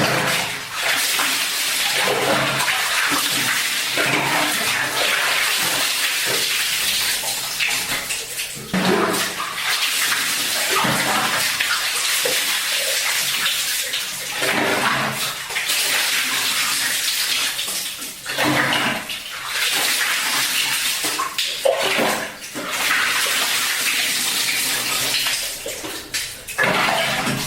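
Bathing with a gayung, a hand-held water dipper: dipperful after dipperful of water is scooped and poured over the body, splashing continuously, with a brief break between pours every few seconds.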